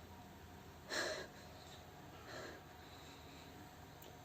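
Two short, noisy breaths, one about a second in and a fainter one just past two seconds, as a woman tries to bring on a sneeze.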